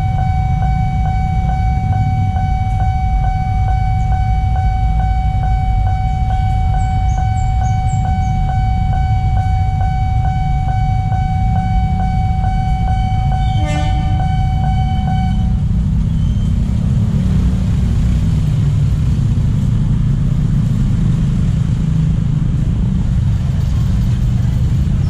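Railway level-crossing warning alarm sounding a steady high tone over a heavy low rumble of engines and traffic. The alarm stops about fifteen seconds in as the crossing reopens, and the rumble of motorcycles and cars goes on.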